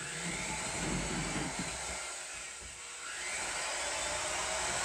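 Corded electric drill running continuously while it is used to take down a wall cabinet. Its motor whine drops in pitch and then climbs back up partway through.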